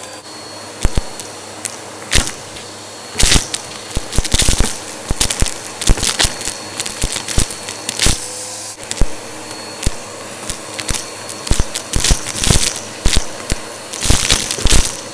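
Vacuum cleaner running steadily while its brushroll picks up a crunchy debris mix, with many sharp, irregular cracks and rattles as bits are crushed and sucked up.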